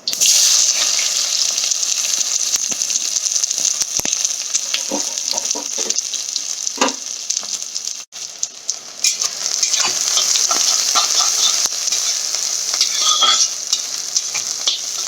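Chopped onion dropped into hot oil and ghee, sizzling loudly the moment it hits the pan and frying with a steady sizzle while it is stirred, with scattered scrapes and knocks of the spoon on the pan. The sizzle breaks off for a moment about eight seconds in.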